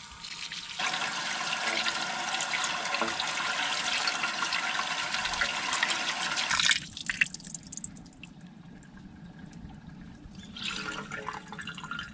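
Water from an outdoor tap splashing over freshly dug turmeric rhizomes into a concrete sink as the soil is rinsed off. The splashing gets louder about a second in and drops off sharply a little past halfway. Quieter trickling and dripping follow, with a short splash again near the end.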